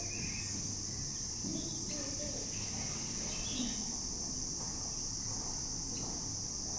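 Steady high-pitched drone of insects, unbroken throughout, with a few faint short bird chirps over it.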